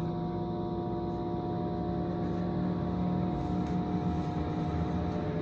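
Quatro DFH1000 ductless fume hood's extraction fan ramping up on its lowest setting: a steady hum with several held tones over a rush of air, pretty noisy.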